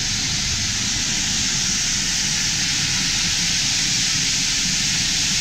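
Pyrotechnic spark fountains on the horns of a fire-bull figure, spraying sparks with a steady, loud hiss.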